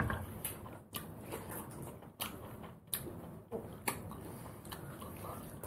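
Eating sounds of mutton curry and rice eaten by hand: chewing and lip smacks, with a string of short, sharp mouth clicks spaced irregularly about every half second.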